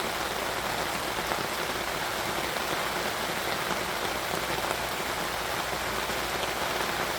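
Heavy rain pouring down, a dense, steady patter.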